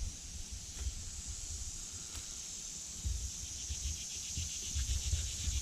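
Steady high-pitched buzzing of insects, with gusts of wind rumbling on the microphone.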